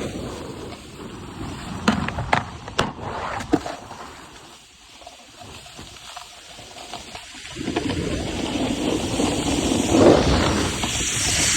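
Scraping of a rider sliding over snow in a terrain park, with several sharp clicks and knocks between about two and three and a half seconds in, as on a jib feature. It goes quieter for a few seconds, then the scraping and rushing noise build up again.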